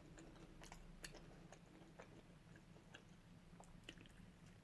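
Faint chewing of salt and pepper spare ribs, with scattered small clicks of the teeth and mouth.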